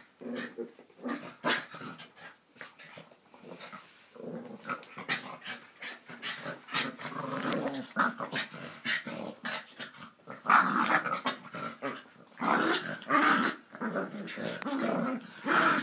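Two Yorkshire terriers play-fighting: continuous growling and snarling with short snaps, coming in louder bouts about two-thirds of the way through and again near the end.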